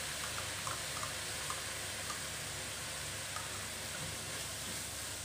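Steady sizzle of frying in a wok as oyster sauce is poured onto wood ear mushrooms and chilli, with a few light spatula taps in the first second or so.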